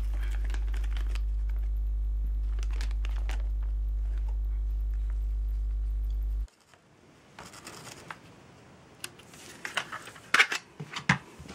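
A steady low electrical hum with light rustling of paper and packaging over it; the hum cuts off suddenly about two thirds of the way through. Quieter rustling and a few sharp clicks of handling follow, the loudest near the end.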